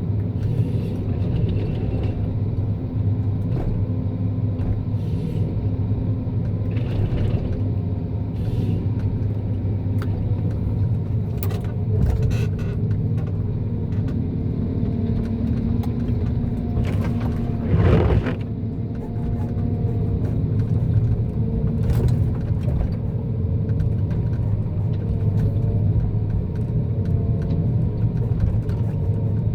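John Deere 1270G harvester's diesel engine running steadily under load, with a wavering hydraulic whine over it. Scattered short knocks come from the machine working, and a louder, rougher burst comes about eighteen seconds in.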